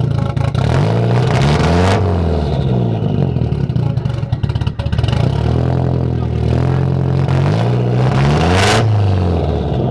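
Car engine revved through a dual-tip exhaust: the pitch climbs to a peak about two seconds in and falls back to idle, then a second rev rises and drops away near the end.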